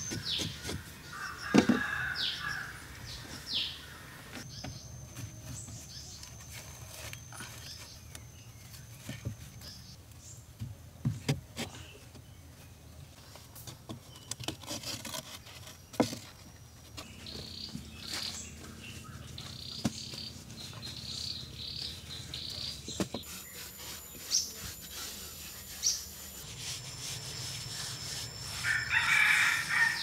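Birds chirping and a rooster crowing, loudest near the end, with scattered knocks of hand tools. A hoe chops into soil a couple of times near the start.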